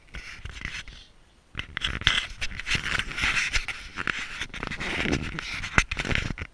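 Irregular scraping and clattering with many small knocks as the wooden model yacht hull and camera are handled, starting briefly, pausing, then running densely from about a second and a half in, with one sharp knock near the end.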